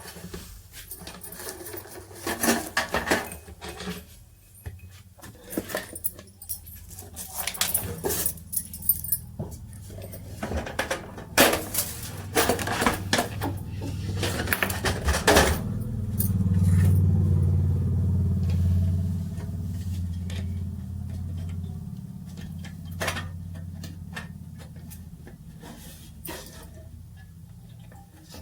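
Irregular clinking and rattling of metal parts being handled, then from about halfway a low steady hum that swells and slowly fades.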